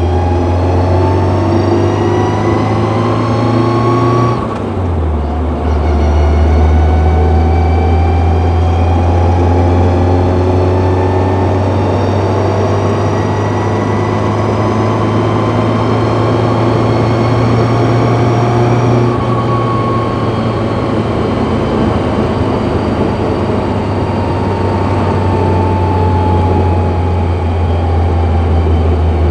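Car driving with its H1R4 manual gearbox whining over the engine hum, the whine slowly rising in pitch as the car gathers speed. The whine breaks off at a gear change about four seconds in, then builds again; this whine is the gearbox's known fault.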